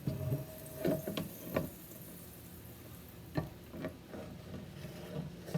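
A few scattered light clicks and knocks of a utensil against a frying pan as butter is spread around it.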